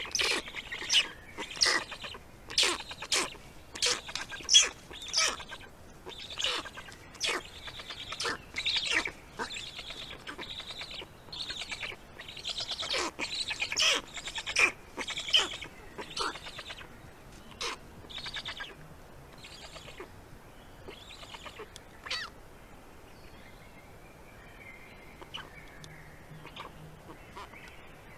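Black stork chicks begging at the nest: a run of short, high calls, one or two a second, loud at first and thinning out to a few faint calls in the last third.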